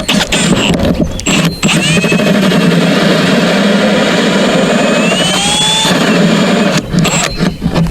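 Power drill boring a 1 1/8-inch entry hole through a wooden box: a few short stop-start bursts, then a steady run of about five seconds with the pitch rising near the end. The run stops about seven seconds in.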